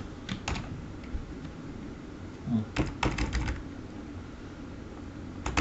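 Computer keyboard being typed in short bursts: a couple of keystrokes near the start, a quick run of keystrokes around the middle, and a few more at the end.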